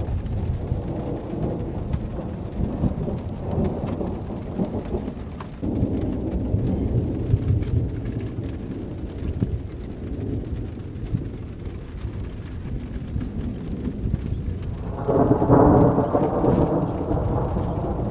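Rolling anvil thunder from an overhead thunderstorm, rumbling almost without a break. It grows louder about five seconds in and is loudest in a long peal about fifteen seconds in.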